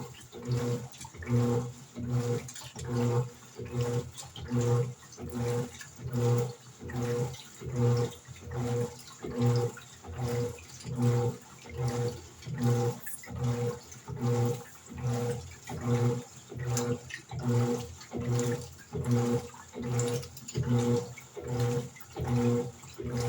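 Electrolux LED14 top-loading washing machine agitating a load in water: the motor hums in regular strokes about once a second, each with a swish of sloshing water.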